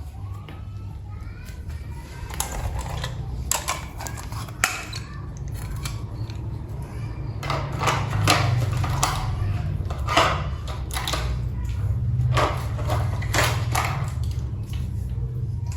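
Battery-powered toy steam train running: a steady low motor hum with irregular plastic clicks and clacks, which grow busier and louder about eight seconds in.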